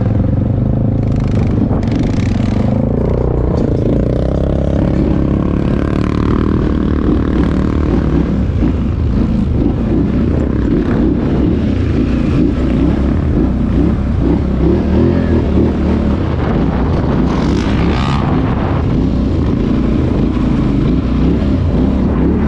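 ATV engine running under way as the quad is ridden, revs rising and falling in the first several seconds, then a rough, uneven rumble, with brief rattles near the start and the end.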